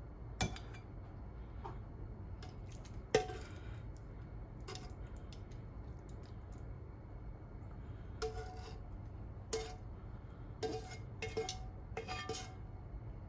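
Utensils clinking and knocking against dishes: about a dozen separate, irregular strikes with short ringing, coming more closely together in the second half.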